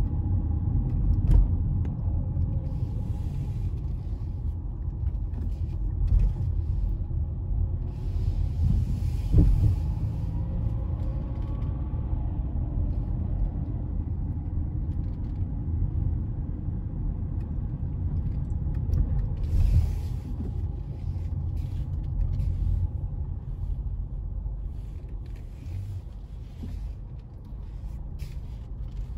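Honda CR-V driving, a steady low rumble of engine and road noise heard inside the car, with a couple of short knocks. It gets quieter over the last few seconds.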